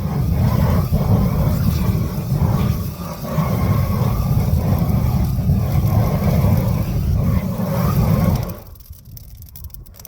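A flamethrower firing into a pile of firewood to light it: a steady, loud low rumble that cuts off about eight and a half seconds in.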